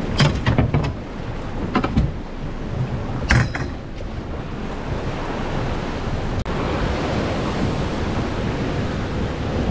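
Rough sea surf churning and breaking against a rocky shore around a small boat, with wind on the microphone. A few loud sharp knocks and splashes come in the first four seconds, then steady surf noise.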